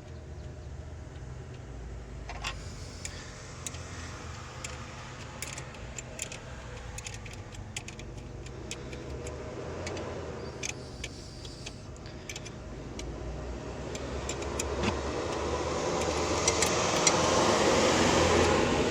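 Light metallic clicks and clinks from hand tools and fasteners being handled while the auxiliary battery's covers and screws are refitted, over a steady low hum. A broad rush of noise swells up toward the end.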